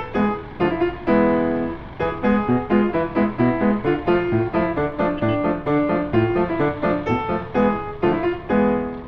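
Background music led by a plucked guitar, with quick notes in a steady rhythm.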